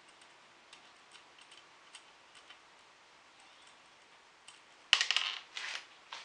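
Faint, irregular small clicks of plastic wire connectors and terminals being handled and pushed together by fingers while wiring a winch control box. About five seconds in, two loud, short, noisy bursts, a breath or a rustle close to the microphone.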